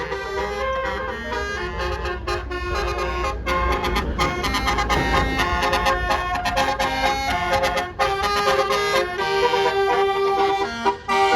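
A bus passes with its engine rumbling while its Basuri telolet horn plays a melody of shifting horn tones. The rumble fades about eight seconds in, and the horn tune carries on.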